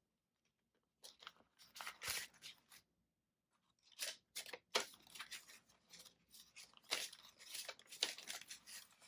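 Paper dollar bills and clear plastic binder envelopes being handled: crisp crinkling and rustling in short spurts, starting about a second in, with a short pause a little before the middle, then denser as bills are pulled from a plastic pocket.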